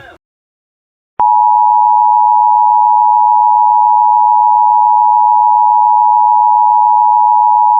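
Emergency Alert System attention signal: a loud, steady electronic tone near 1 kHz that starts abruptly about a second in, after a moment of silence. It marks the start of a new alert, and the warning message follows it.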